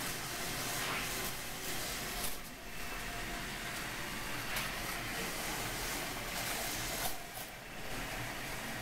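Model roller coaster built from CDX Blocks plastic track and supports running: a steady whirring, rattling hiss that briefly dips twice.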